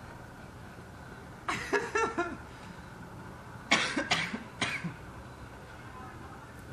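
A person coughing in two short bouts, the first about a second and a half in and the second a couple of seconds later.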